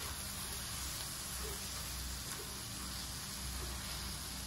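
Kimchi fried rice sizzling in a hot wok as it is stir-fried with a silicone spatula: a steady, even hiss, with a steady low hum underneath.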